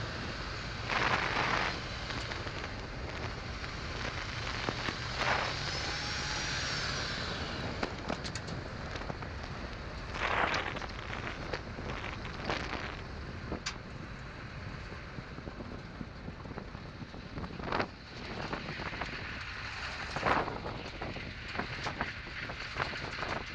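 Duramax turbodiesel in a 1967 Chevy C10 running on the move, heard from inside the cab as a steady hum and road noise. Several brief, sharp louder noises break through, and a short high whistle rises and falls about six seconds in.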